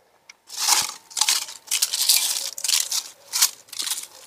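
A hand scraping and digging in the potting soil of a large plastic plant pot: a series of about six short scrapes, starting about half a second in.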